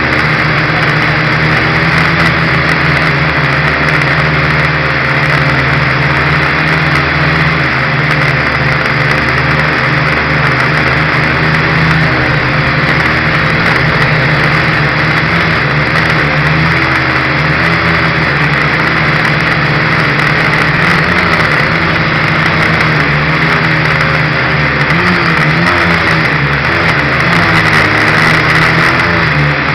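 Dromida Ominus quadcopter's electric motors and propellers buzzing loudly close to the onboard camera, a steady whine whose pitch wavers as the throttle changes, most in the last few seconds.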